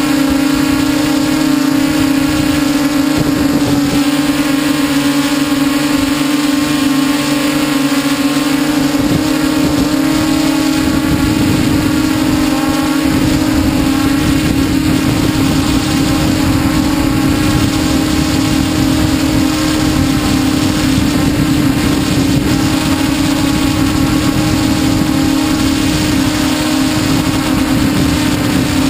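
Multirotor drone's electric motors and propellers, heard from a camera mounted on the drone: a loud, steady buzzing hum with a strong low tone and fainter higher tones above it. From about 11 seconds in, a rougher low rushing noise joins.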